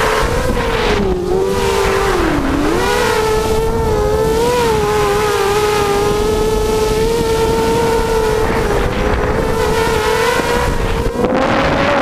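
Six brushless motors of a small hexacopter (Tiger MN1806 2300kv with GemFan 5x3 two-blade props) whining steadily in flight. The pitch dips briefly about two seconds in as the motors slow, then holds and rises slightly near the end. Wind buffets the onboard microphone.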